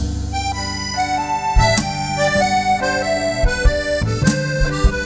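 Accordion playing a running jazz melody, backed by a plucked double bass and a drum kit with scattered sharp hits.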